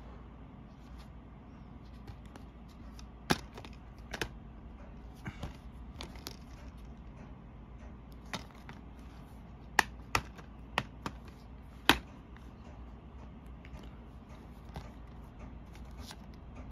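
Plastic DVD keep cases being handled, opened and closed: about a dozen scattered sharp clicks and taps, most of them clustered about ten to twelve seconds in.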